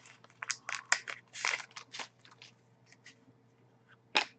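Trading card pack being opened and its cards handled: a string of short wrapper crinkles and card rustles, with one louder crackle near the end.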